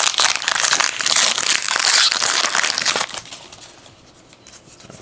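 A trading card pack's wrapper crinkling and crackling as it is torn open for about three seconds, then the noise stops.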